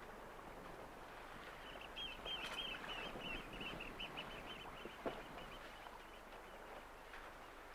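A bird calling a fast run of short, high repeated notes for a few seconds, over steady wind and water noise, with a single knock about five seconds in.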